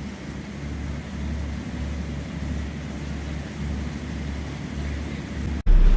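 Small passenger ferry's engine running, a steady low drone that swells and eases slowly. Near the end it cuts abruptly to loud wind buffeting the microphone.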